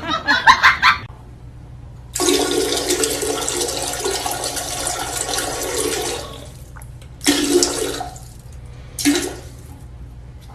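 Toilet flushing: a loud rush of water starting about two seconds in and lasting about four seconds, followed by two shorter bursts of similar rushing noise.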